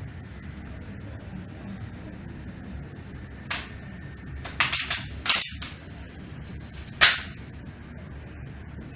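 A handful of sharp cracks over a steady hiss: one single crack, then a quick rattle of several, another crack, and the loudest one a couple of seconds later.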